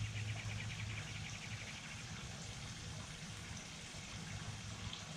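Outdoor background of a steady low hum under a soft hiss, with a rapid, regular high trill for about the first two seconds.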